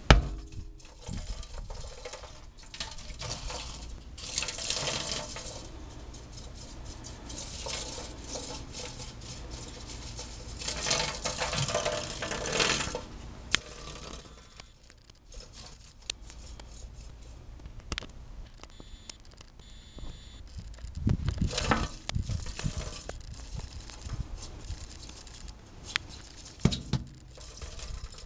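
Lizard's claws scrabbling and skittering on the bottom and sides of a stainless steel sink in irregular bursts, with scattered sharp clicks: the lizard is trapped and cannot climb the slick metal. A few low thumps come about two-thirds of the way in.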